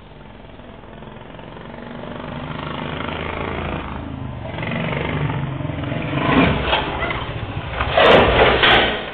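Motorcycle engine growing louder as it approaches, then a loud crash about eight seconds in as the bike collides with a bull and goes down, with two sharp clacks of impact.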